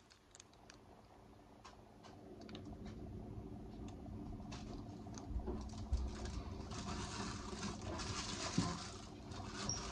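Hands working damp fabric: rustling with many small clicks and taps, getting louder about halfway through.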